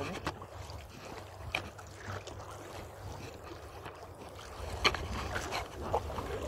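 Wind rumbling on the microphone, with a few soft knocks and scuffs from walking on sand while carrying an inflatable kayak; the clearest knock comes near the end.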